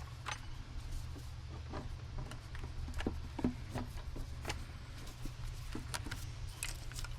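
Scattered light clicks and knocks from hands and tools working on engine-bay parts, over a steady low hum.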